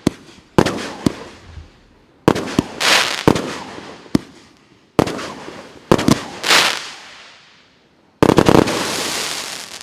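Multi-shot consumer firework cake ("Samurai" battery) firing: sharp bangs every second or so, each followed by fading crackle. About 8 seconds in a quick volley of several bangs runs into a long crackling burst.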